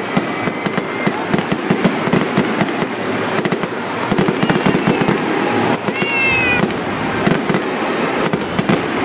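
An aerial fireworks display going off in rapid succession: a dense, continuous crackle of launches and bursts. A thin whistling tone sounds near the start and another about six seconds in.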